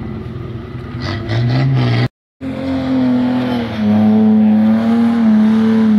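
Off-road vehicle engine under load, its revs climbing. After a brief cut-out about two seconds in, it runs louder at high revs, the pitch easing down slightly.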